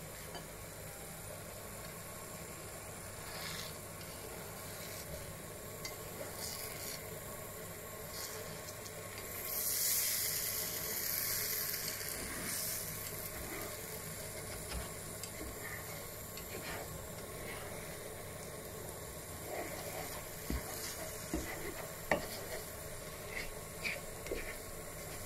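Egg omelette sizzling in a non-stick frying pan, the sizzle swelling louder for a few seconds around the middle as the omelette is folded over. Later a plastic spatula scrapes and taps against the pan in short clicks.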